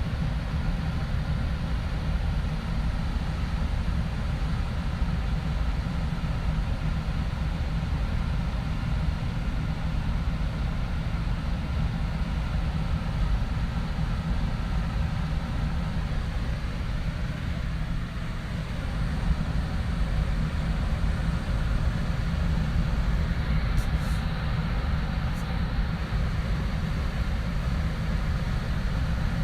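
Air conditioner running steadily: a constant low hum under an even rush of air.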